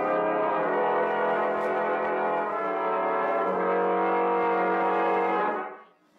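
Radio-drama music bridge between scenes: brass holding sustained chords that shift a few times, then fading out near the end.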